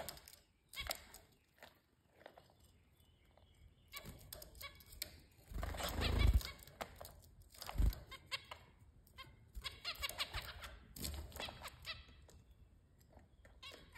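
Zebra finches in a cage giving short calls and pecking at food, with small clicks throughout. About six seconds in, a burst of wing flapping is the loudest sound, as a finch flies down to the leaf dish.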